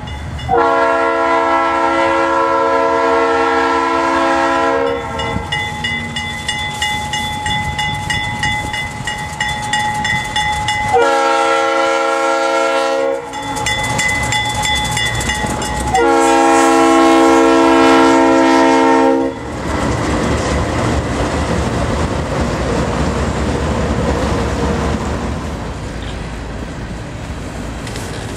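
CSX freight train's diesel locomotive horn, a multi-note chord, sounding a long blast, a short one and another long one as the train approaches and passes, with a bell ringing between the blasts. After the last blast the freight cars rumble and clatter past on the rails.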